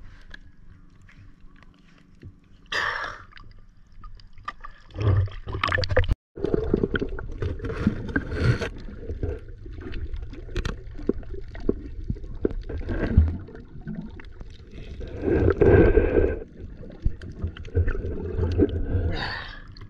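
Water splashing and lapping at the surface, then, after a brief dropout about six seconds in, the dense muffled rumble, bubbling and crackle of water heard underwater, loudest a little past the middle.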